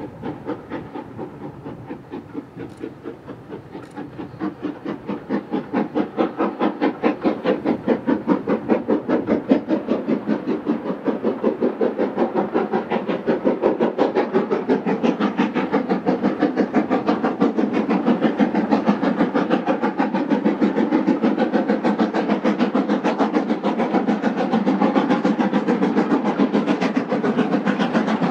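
LNER B1 class 4-6-0 steam locomotive's two-cylinder exhaust beating steadily as it hauls a five-coach train, working hard and drawing closer: the beats grow louder over the first few seconds, then hold loud and even.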